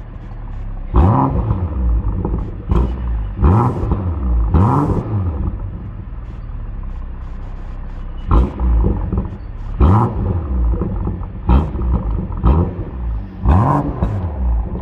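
BMW M340i's 3.0-litre turbocharged straight-six through an M Performance exhaust, revved stationary in about ten quick throttle blips, each rising and falling in pitch. It drops back to a steady idle for a few seconds midway.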